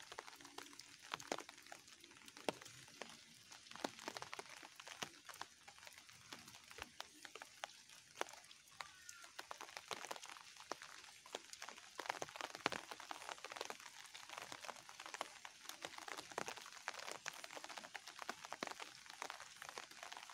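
Light rain falling on leaves and a wet lane: a soft steady hiss with many irregular ticks of drops landing close by.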